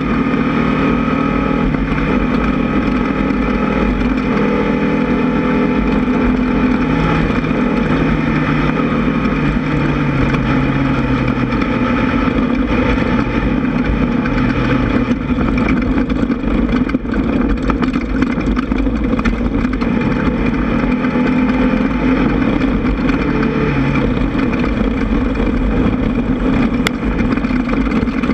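Air-cooled VW 1600 flat-four engine of an off-road race buggy running hard, its pitch stepping up and down with throttle and gear changes, with frequent short knocks and rattles over it.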